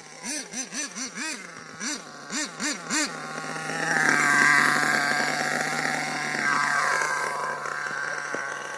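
HPI Savage RC monster truck's nitro engine blipped from idle, about nine quick rising-and-falling revs in the first three seconds. Then it settles to a steady idle, with a louder, higher whir about four seconds in that slowly fades.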